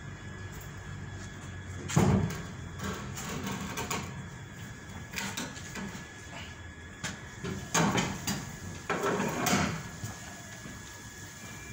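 Steel-tube frame of a chair trolley knocking and scraping as it is lifted and handled: one sharp knock about two seconds in and a run of knocks and scrapes near the end, over a steady background hum.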